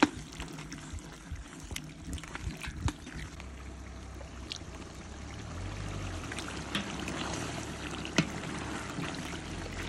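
Pork stew bubbling and sizzling in a large enamelled cauldron over a wood fire, with scattered sharp crackles. A low hum comes in about three seconds in.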